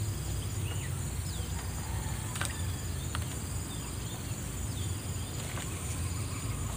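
Steady outdoor ambience: a continuous high-pitched insect chorus over a low, even rumble, with a few short falling bird chirps and two brief clicks in the middle.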